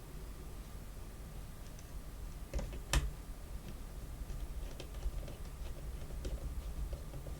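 Small clicks and taps of a tiny piece of copper board being pushed and fitted into an N gauge locomotive chassis, with one sharper click about three seconds in, over a low steady hum.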